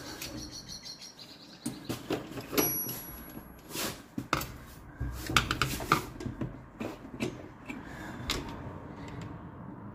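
Hands working a moulded heater box cover against a Holden WB firewall while lining up the heater pipes through their grommets: irregular knocks, clicks and scraping of the housing, with a cluster of sharper knocks about halfway through.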